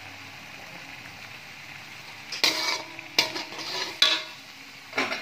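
Slotted metal spatula scraping and knocking against a metal wok while stirring chilli spice paste, four strokes about a second apart in the second half, over the faint steady sizzle of the paste frying.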